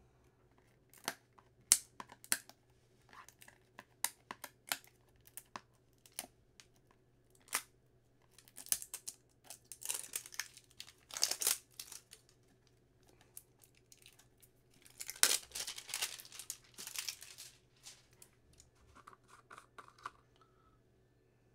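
Scattered clicks and short bursts of tearing and crinkling as the seal on a brand-new jar of aloe vera gel is picked at and torn off. The loudest tearing comes about ten seconds in and again about fifteen seconds in.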